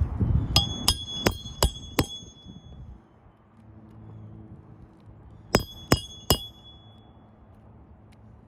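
Hammer striking a roofing nail during a shingle repair: five quick, ringing metallic blows, a pause of about three seconds, then three more.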